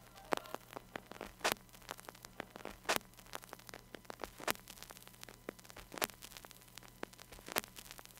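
Faint crackling static: scattered irregular clicks, a few a second and uneven in strength, over a steady low hum.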